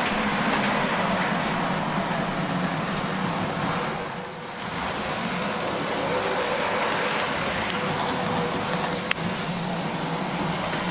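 OO gauge model locomotive running on the layout's track: a steady whirring noise from its motor and wheels on the rails, briefly quieter about four seconds in, with a single sharp click about nine seconds in.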